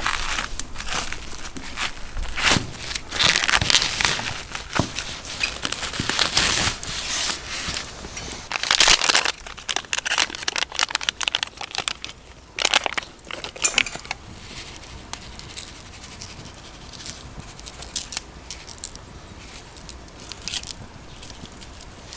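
Irregular crackling and crinkling, busy and fairly loud for the first half, then sparser and quieter.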